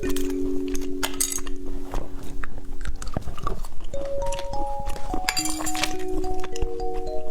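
Background music of held, chime-like notes, with irregular clicks and crinkles of handling or eating over it.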